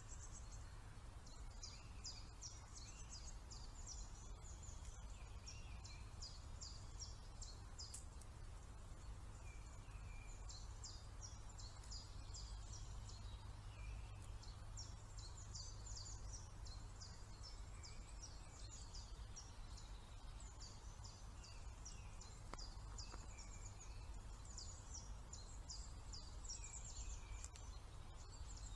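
Small songbirds singing high, rapid phrases a few seconds long, again and again with short pauses, over a steady low rumble.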